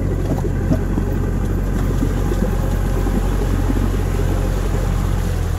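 A motor vehicle's engine running steadily at constant speed, a low, even drone, as the vehicle travels along a rough mud track.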